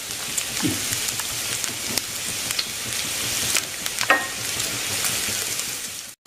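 Sliced onions, garlic, ginger and curry leaves sizzling and crackling in hot oil in a frying pan, with a wooden spatula stirring and scraping through them about four seconds in. The sound cuts off abruptly just before the end.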